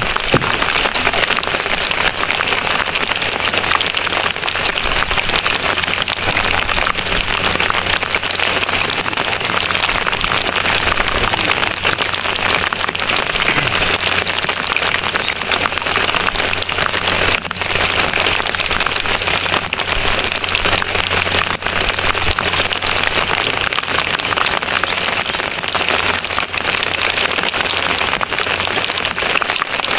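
Steady, even hiss of water, like rain falling or a stream rushing, with no break.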